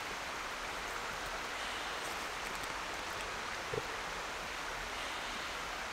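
Steady, even rushing noise of the open-air surroundings, with a short soft sound a little before four seconds in.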